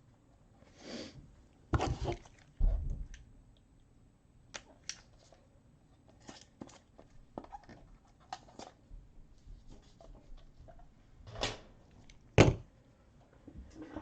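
Handling noises: a couple of thumps about two seconds in, light clicks and rustles, and one sharp knock near the end.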